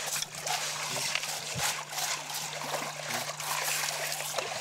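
Water splashing and trickling as diamond-bearing river gravel is washed in a round sieve and sorted by hand, with small stones scraping and clicking against each other.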